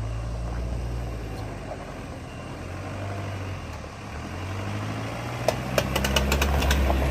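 Mitsubishi Pajero's engine running on a steep off-road climb, swelling louder in the second half. A quick string of sharp clicks and knocks comes near the end.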